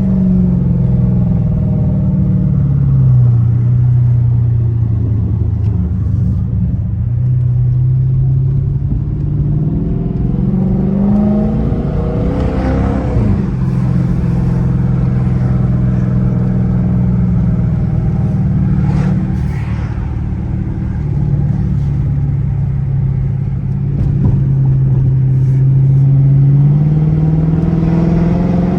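A Chrysler 300S's 5.7 Hemi V8 running under way, with an exhaust whose resonators have been gutted. Its note rises and falls with the revs. About twelve seconds in the revs climb quickly and then drop sharply as it shifts, and they climb again near the end.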